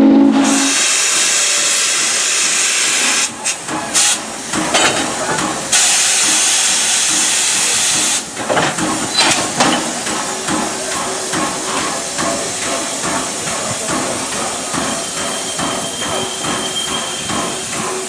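Norfolk & Western Class J 611 steam locomotive getting under way. A short whistle blast ends right at the start, then loud hissing steam broken by a few exhaust chuffs. After about eight seconds it settles into a steady beat of exhaust chuffs.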